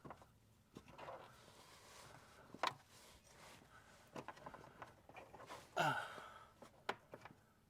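Faint clicks and taps of small metal probe pins being worked into a plastic wiring connector, with a person's breathing and a sigh about six seconds in.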